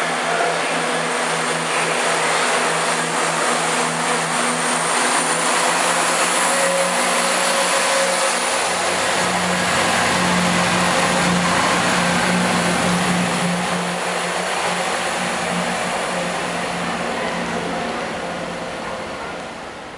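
CrossCountry Class 170 Turbostar diesel multiple unit running along the platform, its underfloor diesel engines droning steadily, with a deeper rumble joining about eight seconds in as the train comes alongside. The sound eases near the end.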